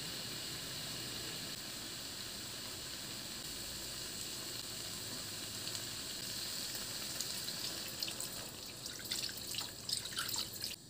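Chicken and tomatoes sizzling steadily in a hot wok, then water poured in from a glass during the last few seconds, splashing and spattering into the pan.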